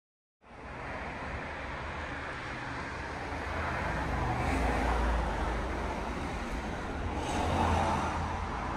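Steady road-traffic rumble starting abruptly about half a second in, swelling twice as vehicles go by, about halfway through and again near the end.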